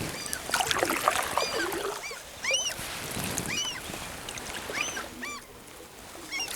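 Canoe paddling on calm lake water, a soft wash of paddle and water noise. Over it come several short, high calls from an animal, each rising and then falling in pitch.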